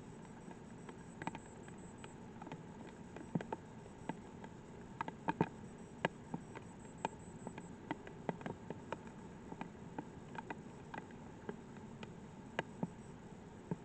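Light rain: scattered raindrops tapping irregularly, a few each second, over a steady low background noise.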